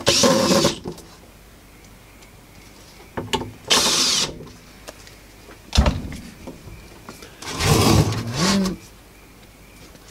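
Handling noise from a metal amplifier case being pressed on and shifted about on a work mat: a few short rubbing, scraping bursts with a single knock partway through.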